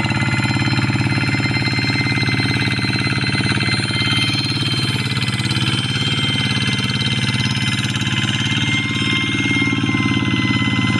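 Single-cylinder diesel engine of a two-wheel hand tractor running steadily under load while ploughing, with a steady high-pitched ringing tone over the engine note.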